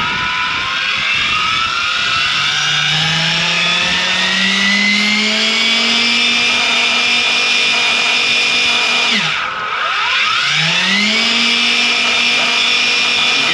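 Goosky RS7 electric RC helicopter's motor and rotor spooling up: a whine that rises in pitch over the first several seconds, then holds steady. About nine seconds in it drops sharply, then quickly spools back up to the same steady pitch, as in a fast spool-up.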